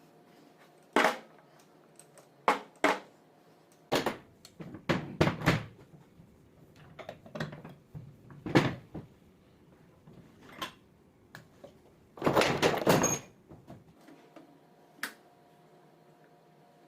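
Tools and metal starter-motor parts being handled on a workbench: irregular sharp knocks and clicks, with a quick run of clattering impacts lasting about a second and a half near the end.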